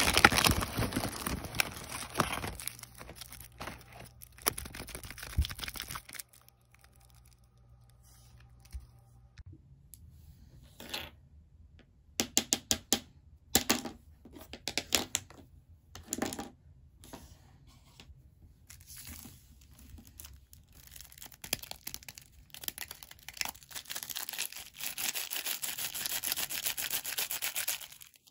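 Hands rummaging through crinkly plastic packaging, a loud rustle that stops about six seconds in. After a quieter spell with a handful of sharp taps and clicks, the foil wrapper of a Yowie chocolate crinkles steadily as it is handled and peeled near the end.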